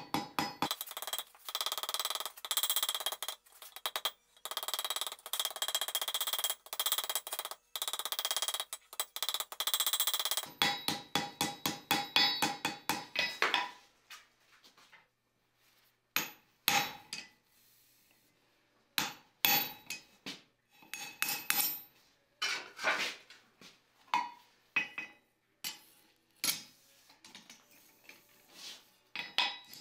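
Hand hammer striking red-hot iron on an anvil while forging short axle clips: a quick, steady run of blows with the anvil ringing between them. About halfway through it stops for a couple of seconds, then slower, scattered blows follow.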